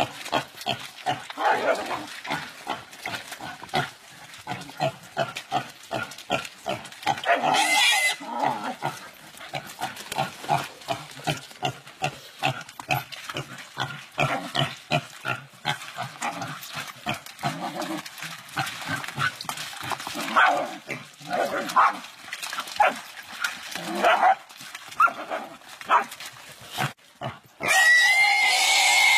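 A pig under attack by dogs, grunting and squealing in rapid, repeated short cries. A louder shrill squeal comes about eight seconds in, and a long, loud, high squeal comes near the end.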